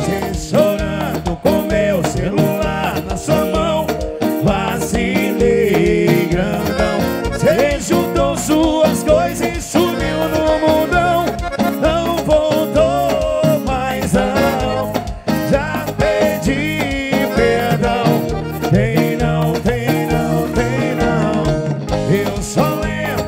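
Lambadão dance music by a band with a sung vocal over a steady, even beat of drums and percussion.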